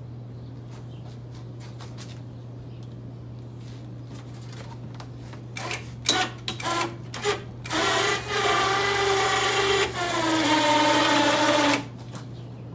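A small motor given several short blips, then held running for about four seconds, its pitch dropping slightly partway through before it cuts off. A low steady hum lies underneath.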